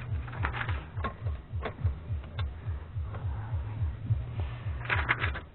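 Scattered sharp clicks and taps of metal parts as a Remington Noiseless 6 typewriter's mechanism is worked on, with a quick run of clicks near the end. A low rhythmic throb runs underneath.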